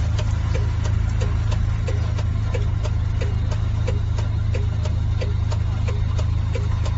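Truck engine idling steadily, heard from inside the cab, with a regular ticking about twice a second over the hum.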